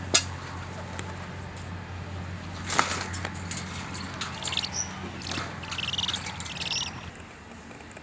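Owls in a wire cage flapping their wings and scrabbling against the mesh, with a sharp click of the cage just after the start and another knock a little under three seconds in. A flurry of scratchy flapping and rattling follows until about seven seconds in.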